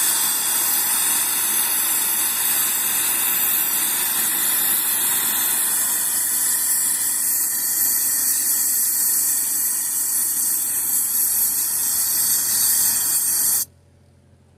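Forge air blower hissing steadily as it blows air into the coal fire; it cuts off suddenly near the end.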